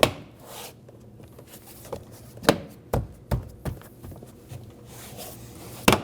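Plastic retaining clips of a car's inner rear door panel being pressed home by hand: a handful of sharp knocks and snaps, a cluster of them in the middle and the loudest near the end.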